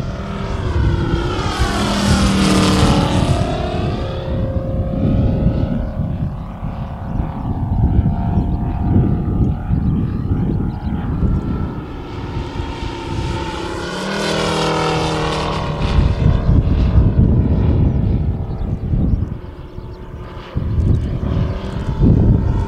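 Engine and propeller of a 1/3-scale radio-controlled Mitsubishi A6M Zero in flight, making two passes: the engine note drops in pitch as the plane goes by, about two seconds in and again around fourteen seconds.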